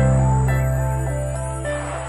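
Background music: a sustained bass note under a melody of short stepping notes.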